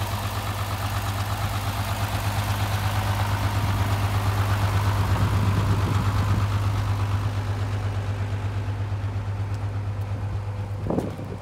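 Mitsubishi Aero Midi bus's 6D17 six-cylinder diesel engine idling steadily, with a deep, even pulsing hum that grows gradually fainter over the last few seconds. A short thump comes just before the end.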